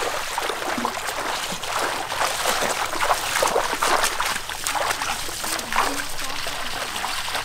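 Several people's feet splashing and sloshing through shallow floodwater as they walk, an uneven run of wet steps.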